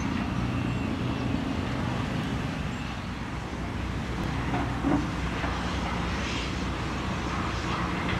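Diesel engines of heavy construction machinery running steadily, a low even drone, with a short knock about five seconds in.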